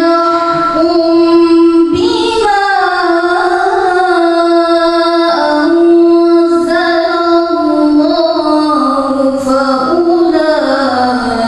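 A young woman reciting the Qur'an in the melodic tilawah style into a microphone. She holds long notes with gliding ornaments, breaking briefly about two seconds in and again about five seconds in.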